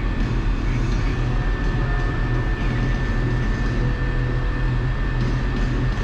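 Case MX120 tractor's diesel engine running steadily under work, with a thin steady high whine over the low engine note, heard from inside the cab.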